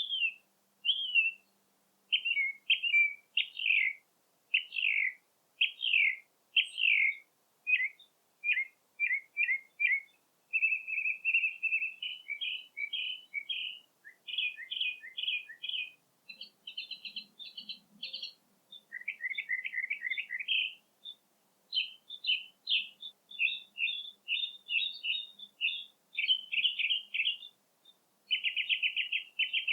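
Birds singing: a steady run of short chirps, quick trills and whistled notes, phrase after phrase with brief pauses between.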